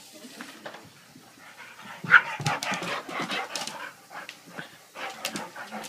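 Dog panting hard close to the microphone, with short vocal noises mixed in, getting louder about two seconds in.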